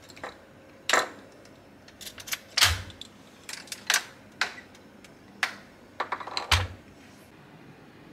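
Key turning in the lock of a small steel in-room safe and the safe door being opened: a string of metallic clicks and clanks, with two dull thumps about two and a half and six and a half seconds in.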